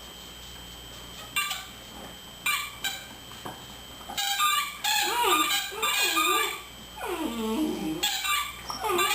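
German Shepherd puppy playing with a squeaky toy: a few short squeaks, then from about four seconds in a run of drawn-out, wavering squeals and whines that rise and fall in pitch, one of them falling low near the end.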